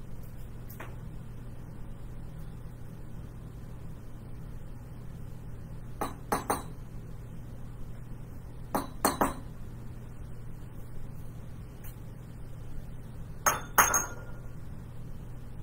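Light clinks of hard objects knocking together, in three short groups of two or three about 6, 9 and 13.5 seconds in, the last group the loudest. A steady low hum runs underneath.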